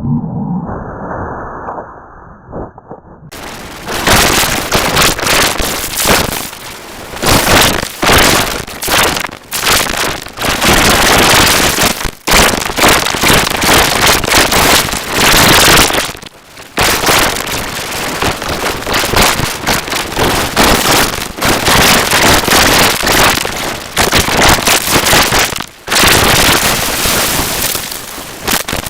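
Harsh, heavily distorted crackling noise from an extreme audio distortion effect laid over the clip, loud and clipped. It is muffled for about the first three seconds, then turns loud and harsh across the whole range, with a few brief dropouts.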